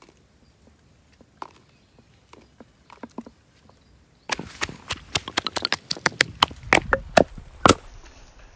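A wooden pestle pounding garlic cloves and red chillies in a wooden mortar: a rapid run of sharp knocks, about five a second, starting about four seconds in. Before it, a few faint taps as the cloves and chillies are dropped into the mortar.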